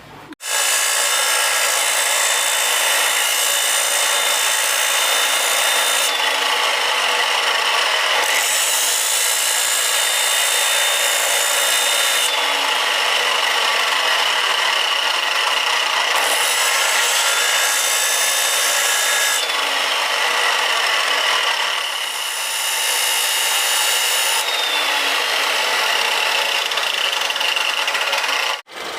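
Power grinder's abrasive wheel grinding the tip of a steel drill bit to sharpen it: a steady, loud grinding hiss with a high whine. Its brightness shifts every few seconds, and it cuts in sharply at the start and stops suddenly near the end.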